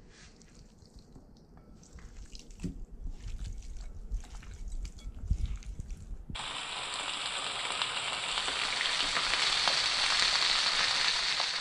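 Hands squishing and turning marinated thick-lipped grey mullet fillets in a glass bowl, with soft wet squelches and small knocks. About six seconds in, a cut to the fillets sizzling in oil in a frying pan, a steady hiss that grows louder.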